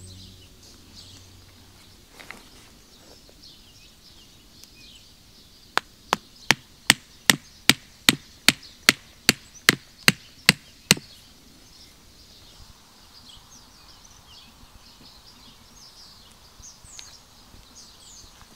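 A wooden tent stake being hammered into forest ground: a run of about fourteen sharp, evenly spaced knocks, two or three a second, lasting about five seconds.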